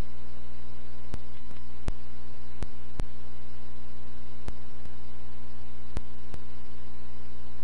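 Police radio channel between transmissions: a steady low hum with faint hiss, broken by sharp clicks every second or so, some in pairs.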